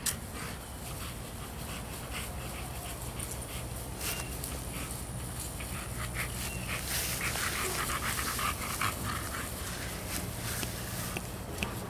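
A large American bully dog panting as it walks on a leash, the breathing heavier for a couple of seconds around the middle.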